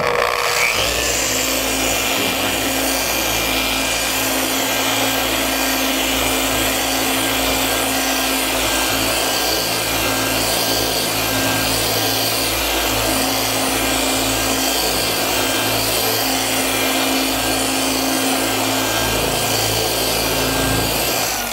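RUPES dual-action polisher switched on and running steadily, its foam pad working over glossy paint with only the polish residue left on it: a quick finishing pass with no product added. A steady motor hum with a faint whine over the rush of the pad on the paint.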